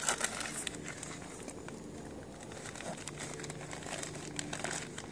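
Faint crinkling and rustling with scattered small clicks, of something crinkly being handled.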